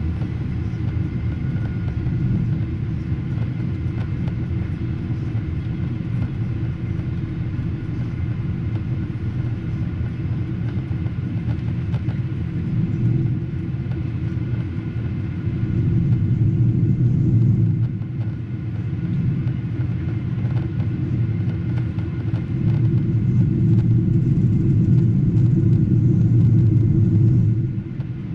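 Steady low rumble of a Boeing 777-200ER's engines and airflow heard from inside the passenger cabin, with a faint steady whine over it. It grows louder a little past halfway and again near the end.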